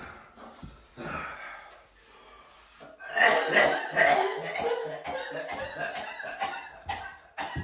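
Coughing: a few softer coughs, then from about three seconds in a louder, rapid string of hacking coughs that runs on.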